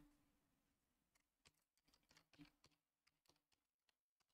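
Near silence with faint, irregular computer keyboard keystrokes as a password is typed.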